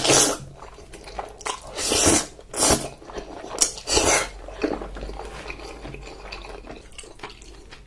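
Close-miked eating sounds: wet chewing with about five short loud bites or slurps in the first four seconds, then quieter steady chewing.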